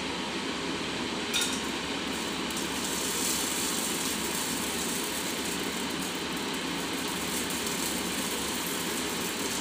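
Whole spices and herbs frying in hot ghee in a pressure cooker: a steady sizzle that grows brighter and hissier about a second in, as more goes into the fat.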